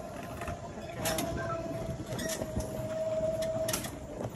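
Golf cart running along a paved path: a steady whine over tyre rumble, with a few knocks from bumps. The whine cuts off shortly before the end as the cart comes to a stop.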